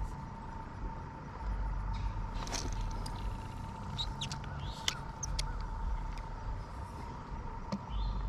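Outdoor pond-bank ambience: wind buffeting the microphone in gusts, a few short bird chirps a few seconds in, and a faint steady high tone in the background.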